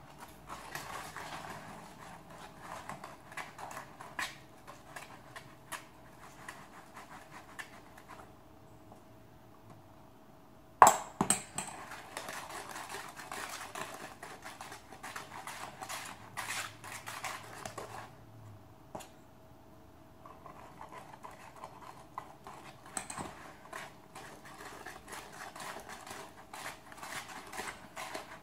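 Wire whisk beating flour into a cake batter of eggs, sugar and melted butter in a bowl: quick, rapid strokes in three spells with short pauses between. A single sharp knock sounds about eleven seconds in.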